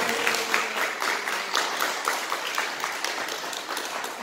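A congregation applauding: many hands clapping together, thinning out near the end.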